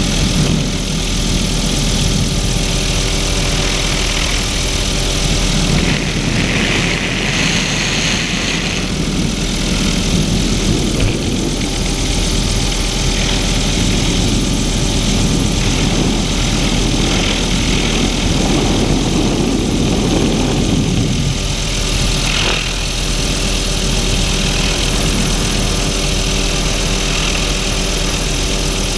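Helicopter in flight heard from inside its doors-off cabin: steady rotor and engine noise with rushing air.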